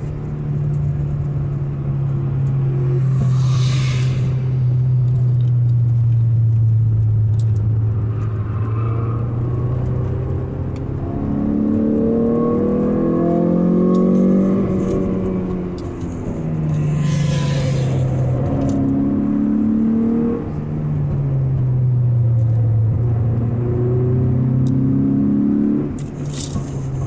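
Mazda 323F BG GT's four-cylinder engine heard from inside the cabin, pulling hard on a track lap, its pitch gliding up and down with the revs. The note drops briefly three times in the second half, where the driver lifts or shifts, and a short rushing hiss comes twice, about four seconds in and past the middle.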